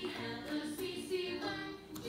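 Background music with a sung melody, and a short click near the end.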